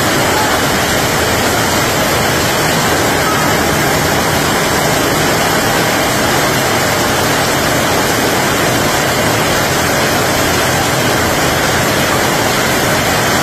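Heavy rain pouring down: a loud, steady hiss of a tropical downpour.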